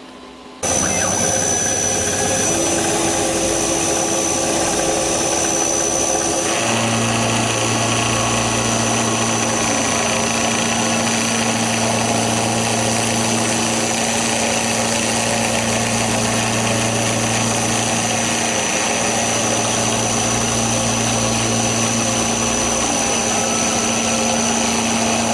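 Milling machine running steadily, cutting the hex flats on a small bolt's head: a hum with a constant high whine that starts abruptly about half a second in. About six and a half seconds in the sound shifts to a deeper hum with more hiss, then holds steady.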